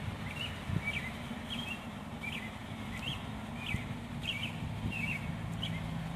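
A small animal's short, high chirp, repeated about every two-thirds of a second, some ten times, over a low steady hum.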